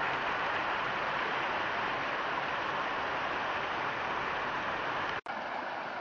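Mountain creek rushing over granite boulders in a small cascade: a steady rush of water that cuts out for an instant about five seconds in.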